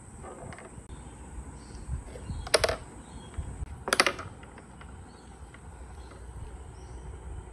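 Mini pool balls clacking against one another as a cat's paw knocks into the rack: two quick clusters of clicks about a second and a half apart.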